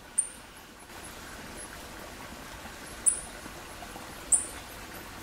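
Short, very high squeaky animal chirps, three of them spaced a few seconds apart, each a quick slightly falling note, over a faint steady background hiss.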